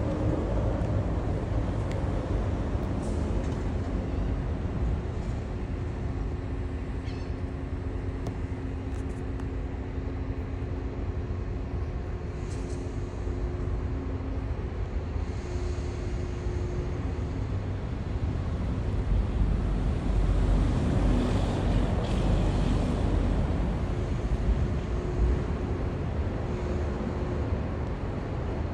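Steady low rumble of a vehicle engine running, with a faint droning hum, swelling slightly for a few seconds past the middle.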